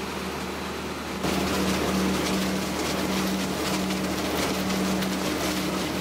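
Machine grape harvester running, a steady mechanical hum over rushing noise, which gets louder about a second in.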